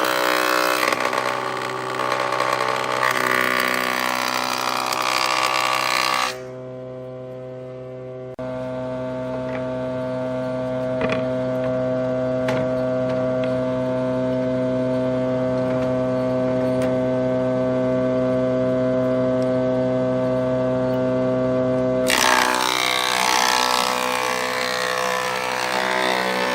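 Electric motor of a homemade table saw running with a steady hum. Louder, noisier stretches come in the first six seconds and again near the end.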